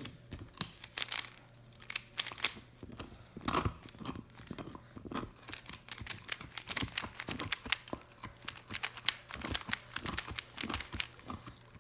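Classic 3x3 Rubik's cube being turned fast, its plastic layers clicking in quick, irregular runs as it is solved. The cube is really smooth.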